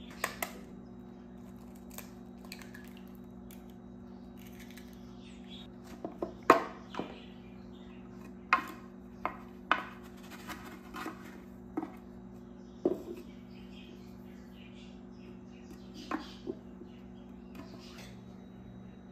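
Kitchenware being handled: about a dozen sharp clinks and knocks of dishes and utensils at irregular intervals, over a steady low hum.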